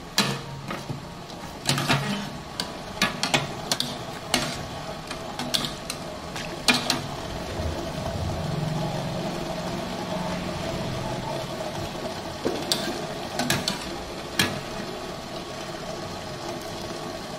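Wire spider strainer scraping and clinking against a stainless steel pot as it stirs and lifts bean sprouts and cabbage greens out of hot water, over a steady bubbling of the water. The clinks come in a cluster during the first several seconds and again a few times near the end.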